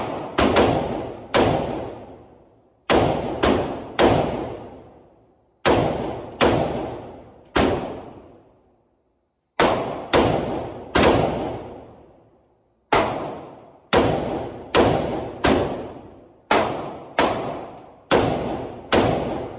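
An FN 15 Tactical II, an AR-15-pattern rifle, fired semi-automatically: about twenty single shots in strings of three or four with short pauses between. Each shot is a sharp report with an echo that dies away in about a second.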